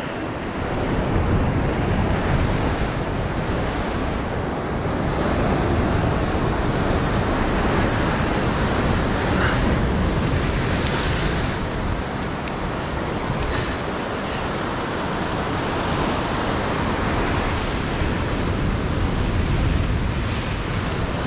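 Heavy ocean surf breaking and washing against a rocky shore in a steady rushing roar that swells and eases, with wind buffeting the microphone.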